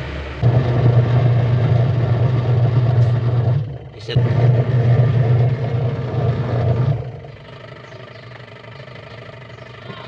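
Single-tub washing machine's electric motor running with a steady low hum, cutting out briefly about four seconds in, starting again, then stopping about seven seconds in. The machine is wired with one motor lead bypassed through the capacitor, so it turns one way only, with no reverse.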